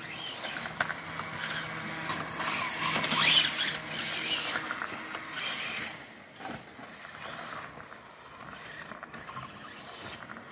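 Electric RC dirt bike riding on a gravel lane: its motor whine mixed with the tyres crunching on loose stones. It is loudest about three seconds in and fades as the bike moves off.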